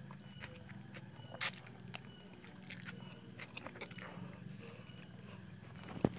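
A man eating bakso noodles: sucking a mouthful of noodles off a spoon, then chewing with small wet mouth clicks, with one louder, sharper sound about a second and a half in.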